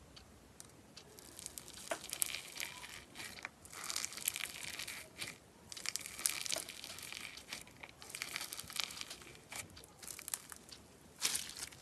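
Foam-bead slime (floam) in a plastic tub being pressed and squeezed by fingers: dense, irregular crunching and crackling of the foam beads, in louder bursts as the fingers push in.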